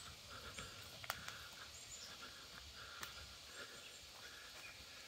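Faint footsteps on a dirt forest trail, with sharp clicks about a second in and again about three seconds in, and faint bird chirps.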